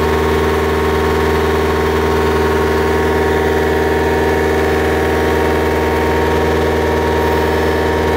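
Techno Drill TD308 drilling rig's engine running at a steady speed, an even drone with no change in pitch or load.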